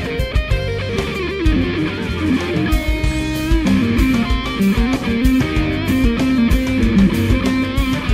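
Electric guitar played through a pedalboard of stompbox effects, taking a melodic lead line with pitch bends and slides over a steady beat.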